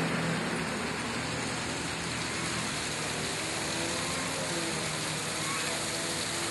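Street traffic noise: a passing vehicle's rumble fades in the first moment, then a steady, even hiss of road noise.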